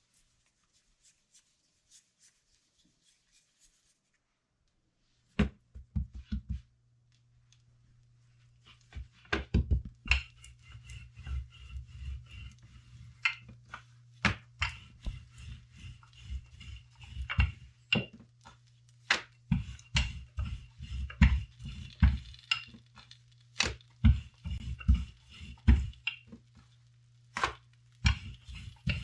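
Irregular wooden knocks and low thumps against a tawa and board while oil roti is being made, some in quick runs of three or four. The knocking starts about five seconds in.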